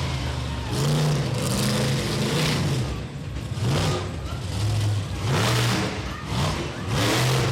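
Monster truck engine revving hard again and again, its pitch climbing and dropping with each burst of throttle.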